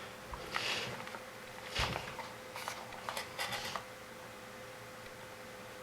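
Light handling noise as multimeter probes and wires are worked by hand: a few soft clicks and rustles in the first four seconds, over a faint steady hum.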